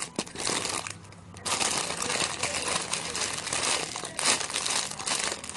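Plastic packaging crinkling continuously as it is handled, easing off briefly about a second in.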